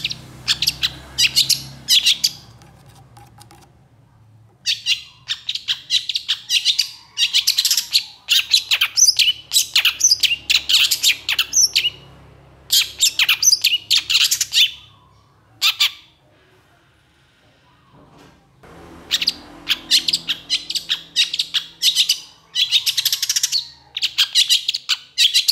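Long-tailed shrike (pentet) singing hard and agitated: long runs of rapid, harsh, scratchy chattering notes in several bursts, broken by short pauses and one longer silence past the middle.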